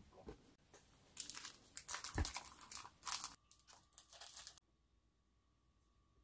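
Plastic lunch boxes being set and shifted inside a foil-lined insulated lunch bag: faint crinkling of the bag's lining and light plastic clicks in short spells, with one soft knock about two seconds in. The sound cuts off abruptly about four and a half seconds in.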